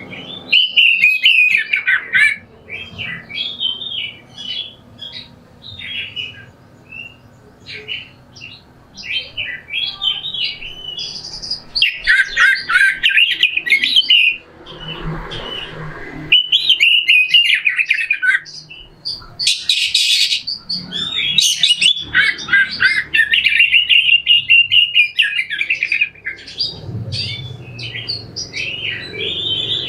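Oriental magpie-robin (kacer) singing a loud, harsh song of rapid chirps, whistles and rasping notes, delivered in stretches of a few seconds with short pauses between them, and a loud rasping burst about twenty seconds in.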